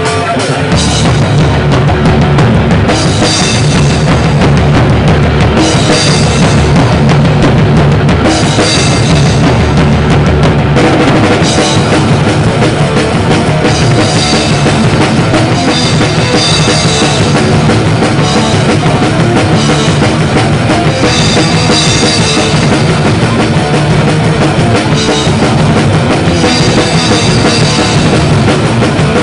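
Drum kit played hard at close range in a loud live rock band: kick drum, snare and crashing cymbals over electric guitar.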